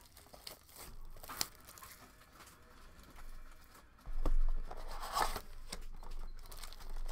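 Plastic shrink-wrap being torn and crinkled off a trading-card box. There is a dull thump about four seconds in as the box is handled.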